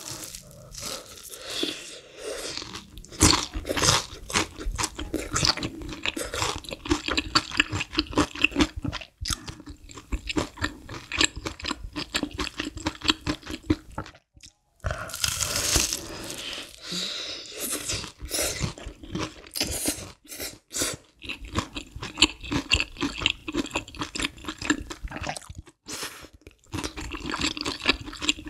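Close-miked crunching and chewing of a breaded, deep-fried cheese pork cutlet: the crisp fried crust cracks in quick, dense bites, broken by a few short pauses.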